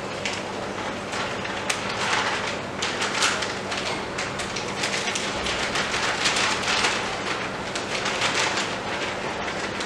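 A plastic powder packet crinkling and rustling in the hands as mango flavour powder is shaken out of it into a tub of milk, with many small crackles, busiest in the middle. A faint steady low hum runs underneath.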